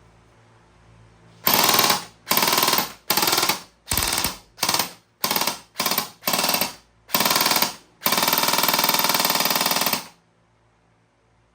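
TTI MPX-K airsoft electric gun (AEG) firing on full auto: nine short bursts, then a longer burst of about two seconds before it stops.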